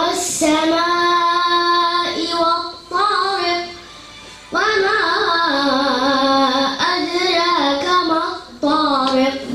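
A young girl chanting Quranic recitation in tajweed style: long, held, ornamented melodic phrases with wavering pitch, broken by short pauses.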